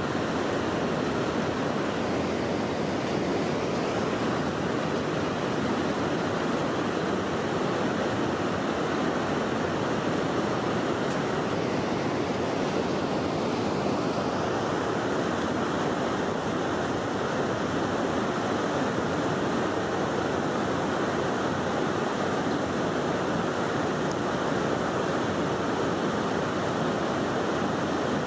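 Steady rushing of river water at a weir, unbroken and even in level.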